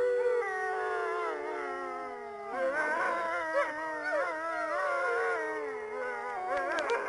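A pack of wolves howling in chorus, several voices overlapping. One long howl holds a steady pitch while another slides slowly downward. About two and a half seconds in, more wavering, rising-and-falling howls join.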